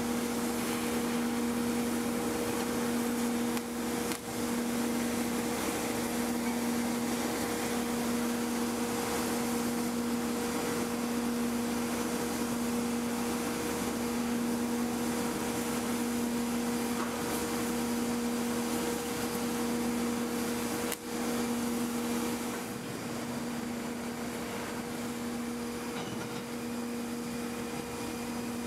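Steady shipyard machinery hum, one even low drone with a higher overtone, over a constant hiss from hull cutting and grinding work. Two brief dips about 4 and 21 seconds in.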